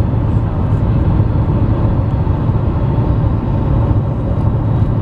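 Steady low road rumble of a moving car, heard from inside the cabin.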